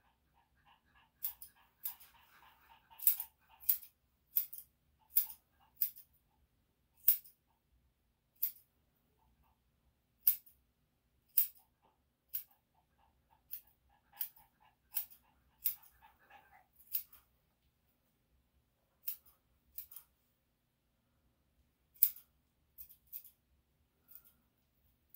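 Nail clippers cutting a small dog's toenails: sharp snipping clicks at irregular intervals, some in quick pairs, with gaps of a few seconds between them.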